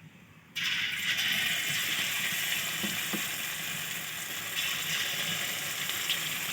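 Batter-coated boneless chicken strips deep-frying in hot oil in a kadai: a loud, steady sizzle that starts suddenly about half a second in.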